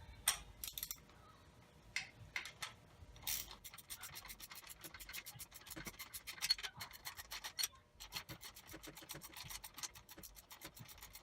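Hand ratchet clicking rapidly and evenly as it runs a bolt on a handlebar clamp, after a few separate clicks and knocks of the tool being fitted.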